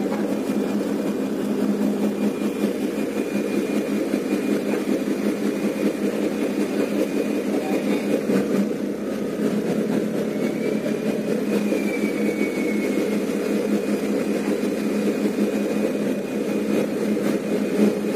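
Tugboat's diesel engine running steadily at low speed, a continuous even drone with no change in pace.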